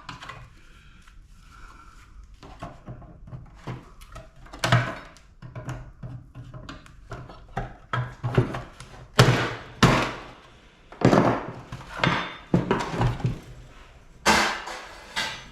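Irregular knocks and clanks of tools and parts against the metal of an air-conditioning unit being taken apart for scrap. The knocks are sharp, come at uneven intervals, and get louder and more frequent in the second half.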